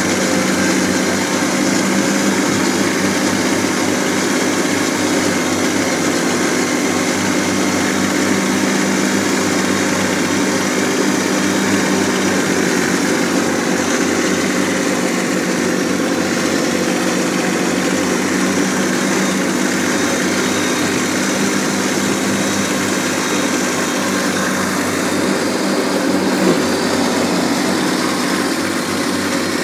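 Kubota B1600 compact tractor's three-cylinder diesel engine running steadily at a constant pitch while mowing grass, heard close up from the driver's seat.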